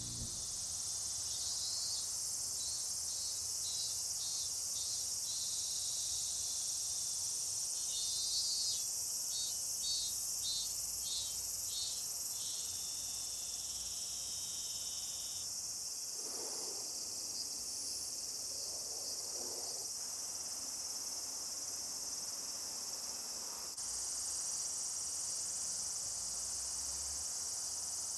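Late-summer singing insects: a steady high-pitched chirring of crickets, joined for the first dozen seconds by a second insect chirping in pulses about twice a second, then by a brief steady trill.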